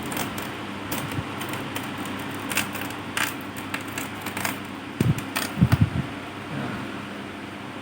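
Small clicks and scrapes of a flat-head screwdriver prying a glued rubber foot strip off a laptop's plastic underside, with a few dull knocks about five to six seconds in.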